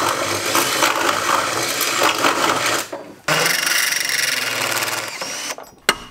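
Cordless drill running, its bit reaming out a hole in a metal compartment-door frame to make it bigger. The drill stops briefly about three seconds in, starts again, then winds down near the end, followed by a single sharp click.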